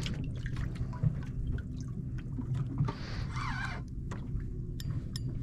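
Water lapping and dripping against a small boat's hull, with scattered small clicks over a low steady hum.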